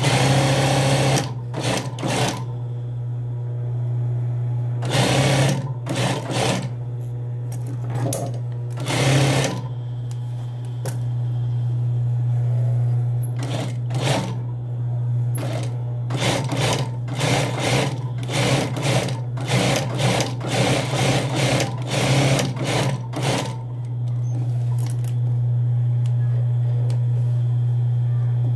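Industrial lockstitch sewing machine stitching in many short runs, starting and stopping, over a steady low hum. The stitching stops about 24 seconds in, leaving only the hum.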